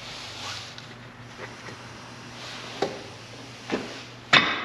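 Hammer strikes knocking a car's CV axle loose: two lighter knocks, then a much louder blow near the end that starts a run of blows about half a second apart.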